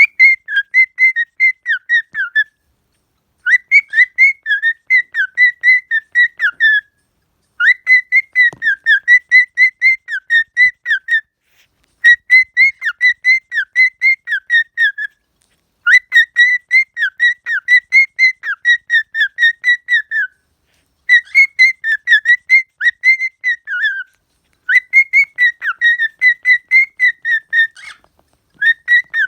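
Cockatiel singing a whistled song: quick chirpy whistled notes, about four a second, in runs of a few seconds broken by short pauses.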